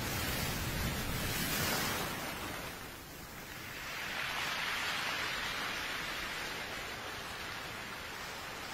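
Sea surf: waves rushing in and falling back, heard as two swells of hissing noise, the second starting about four seconds in.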